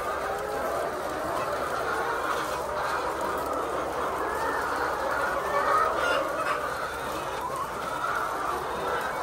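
A large flock of laying hens calling and clucking together in a dense, continuous din of overlapping calls.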